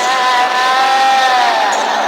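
Horror sound effect of a long, high wailing cry held on one pitch, sliding down and fading away about a second and a half in.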